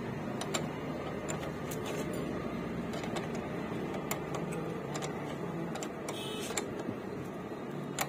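Irregular metallic clicks and taps of a spanner working the nut on a motorcycle's rear drum brake lever, with a short rattle near the end, over a steady background hum.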